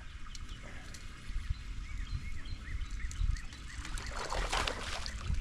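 A bird giving a quick series of about seven short, evenly spaced chirps, over a steady low rumble, with a short burst of noise near the end.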